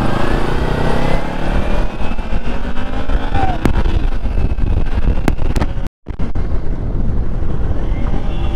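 Kawasaki Ninja sport bike engine running under way, its pitch rising and falling with the throttle, with wind rush on the microphone. The sound cuts out for a moment about six seconds in.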